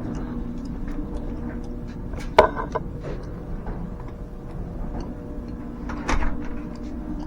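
Steady low hum of a smoke machine's air pump running while it feeds smoke into the car's vacuum system. A sharp knock comes about two and a half seconds in, and a lighter clatter near the end.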